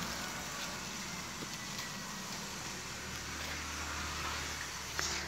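Steady background hiss with a low hum that swells from about three seconds in, and a faint click near the end.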